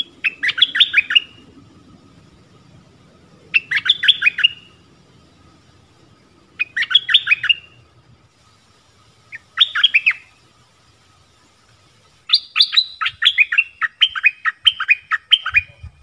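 Stripe-throated bulbul singing: four short phrases of rapid, bubbly notes about three seconds apart, then a longer run of notes near the end. It is the call of a bird calling for a mate.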